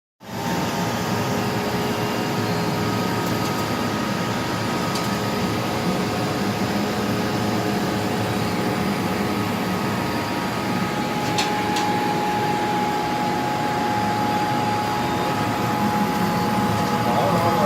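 Laser cutting machine running as it cuts leather, a steady whir of its fans and motors with a few faint steady tones.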